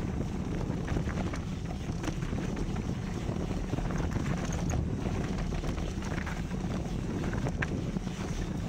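Mountain bike rolling fast down a dry dirt trail: a steady rumble of wind buffeting the microphone and tyres on dirt, with scattered small clicks and rattles from gravel and the bike.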